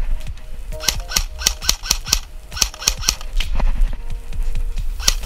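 Airsoft guns firing short bursts of sharp, clacking shots, two to four shots per burst, several bursts in quick succession.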